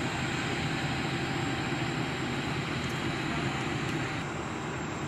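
Steady low rumble of idling vehicle engines with a constant hiss over it, no distinct events.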